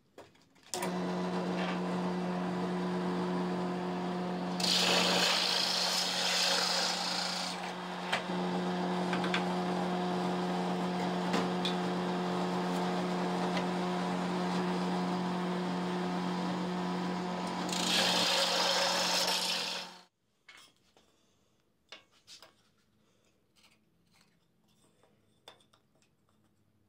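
Benchtop drill press running steadily as a Forstner bit bores a recess into a plywood block, with louder hissing cutting noise a few seconds in and again shortly before the motor sound cuts off abruptly. Faint light taps and scratches follow as a piece of wood is marked with a pencil and square.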